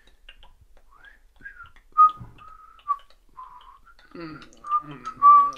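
A person whistling a short run of held and gliding notes, loudest near the end, with a voice coming in over it from about four seconds in.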